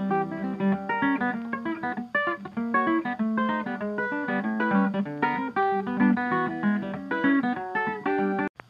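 Background music of plucked acoustic guitar in quick notes, cutting off abruptly just before the end.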